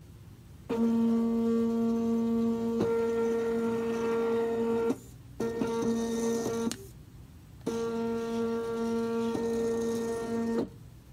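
Motorised gantry under a self-moving chessboard driving its carriage to slide a chess piece across the board: a steady, high-pitched mechanical whine heard in three runs, with short pauses after about four seconds and again a little past six seconds.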